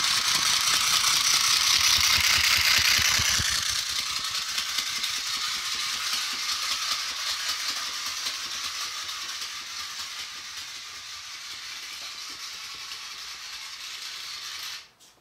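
Battery-operated flapping bald eagle toy running, its small motor and replacement plastic gears whirring and rattling as the wings flap. The sound is loudest in the first few seconds, fades slowly, then cuts off sharply near the end.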